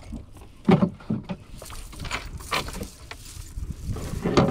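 A fish and a wet cast net knocking against the floor of a small boat. There are a few sharp knocks and thumps, the loudest under a second in and again near the end, with rustling between them.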